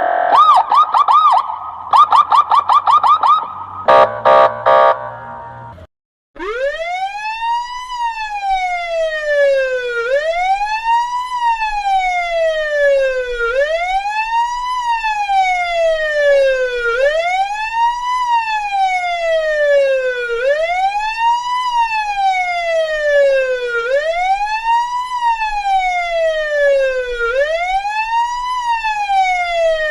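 Russian police car electronic siren. It opens with a fast chirping yelp, then gives a few harsh buzzing quacks of the 'kryakalka' special signal. After a brief break it settles into a wail that climbs quickly and falls slowly, repeating about every three and a half seconds.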